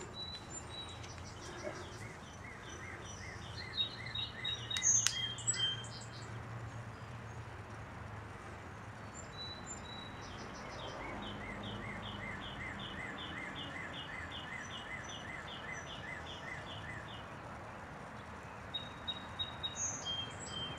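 Birds chirping in runs of short repeated notes, about three a second, twice over, with a faint steady low hum beneath and a few brief clicks about five seconds in.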